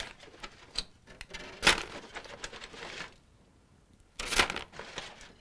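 Aluminium foil and a brown paper bag crinkling and rustling in short bursts as roasted chestnuts are picked out of the foil and dropped into the bag. The loudest rustle comes about two seconds in, and there is a brief lull shortly before the last burst.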